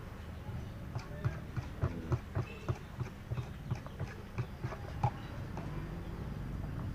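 Close-up eating sounds of a man chewing fried instant noodles with raw green chilies: a run of irregular short wet clicks and smacks, about two or three a second, mostly between one and five and a half seconds in.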